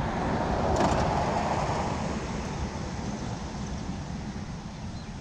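Mobility scooter rolling along an asphalt street: a steady rumbling road noise that eases off gradually.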